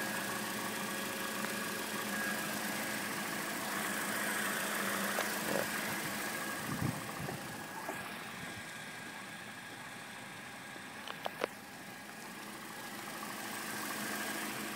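Toyota 1.8-litre VVT-i four-cylinder engine idling steadily, heard from the open engine bay. A few brief clicks come about eleven seconds in.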